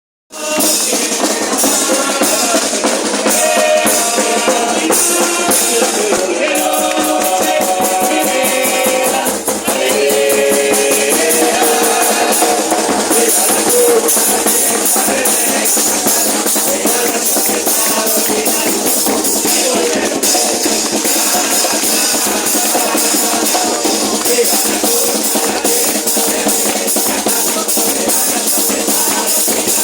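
A murga chorus singing over the murga drum section of bass drum, snare and cymbals, which keeps a steady beat.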